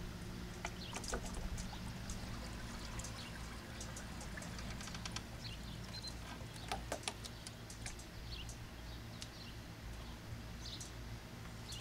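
Water splashing and trickling in scattered little bursts as a Minn Kota electric trolling motor's propeller churns the surface beside an aluminum jon boat, over a steady low rumble of wind on the microphone.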